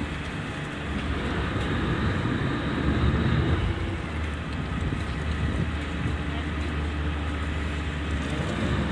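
Lifeboat's diesel engines running with a steady low drone, under a rush of wind and water noise.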